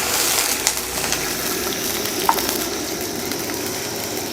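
Water sizzling and bubbling in a pan of hot oil with fried garlic and crushed chilli, a glass of water having just been poured in, with a brief ringing clink about two seconds in.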